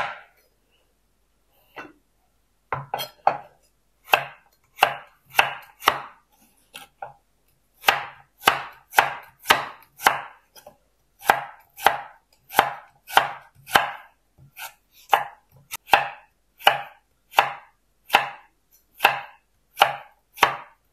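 Chef's knife slicing a raw carrot on a wooden cutting board: crisp cuts that each end in a knock on the board. They start about three seconds in and go at about two to three a second, in runs with short pauses between them.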